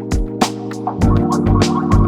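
Background music with a steady beat; a fuller sustained chord comes in about a second in.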